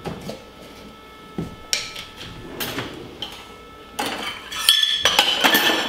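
Kitchen clatter: dishes and utensils clinking and knocking on a countertop, a few scattered clinks at first, then a louder run of ringing clinks near the end.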